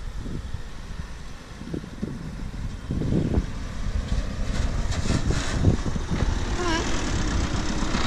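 A 4WD dual-cab ute drives up a soft sand track and passes close by, its engine and tyres getting louder from about three seconds in, over steady wind rumble on the microphone.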